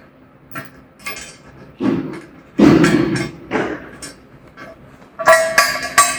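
Steel sawmill-bed parts and tools knocking and clanking as they are handled and fitted, with a longer scraping clatter about halfway through. Near the end come three quick metal strikes that ring on.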